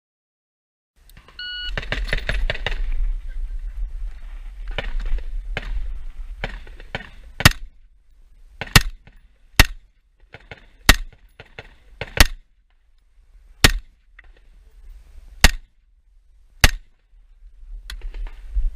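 A shot timer beeps once to start the stage, followed by a few seconds of rapid clattering and knocks. Then an IWI Tavor SAR rifle fires eight loud shots, one every one to two seconds, over low wind rumble.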